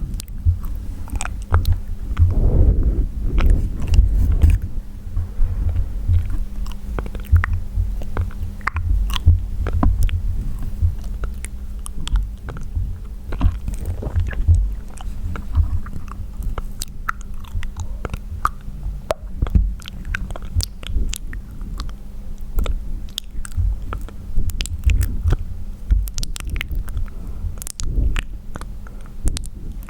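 Close-miked wet mouth sounds for ASMR: a dense, irregular run of clicks, pops and smacks with heavy low rumble and no talking.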